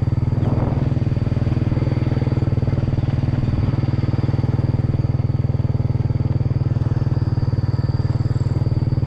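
Motorcycle engine running at a steady speed while being ridden, with an even, rapid throb.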